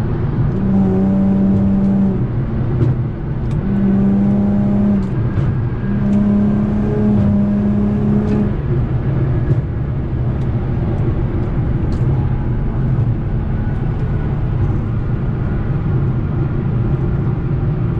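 Car engine and road noise heard from inside the cabin at highway speed. A steady droning tone swells in three times in the first half, then a continuous rumble.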